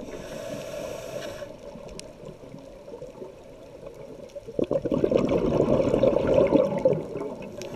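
Scuba regulator breathing underwater: a hissing inhalation at the start, then a loud burst of bubbling exhaled bubbles about halfway through that lasts two to three seconds.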